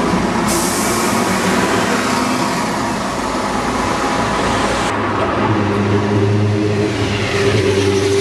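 Heavy road or rail vehicle engine running, with a hiss that starts about half a second in and cuts off about five seconds in; after that the engine note rises as it pulls away.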